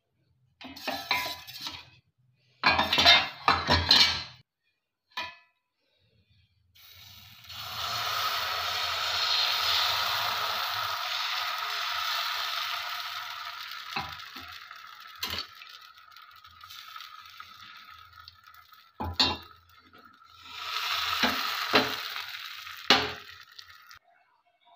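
Metal kitchenware clattering against a kadhai on a gas stove for the first few seconds, then thin batter sizzling in the hot non-stick kadhai as it is spread with a steel ladle, the sizzle swelling and fading with a few sharp ladle clinks and a second swell near the end.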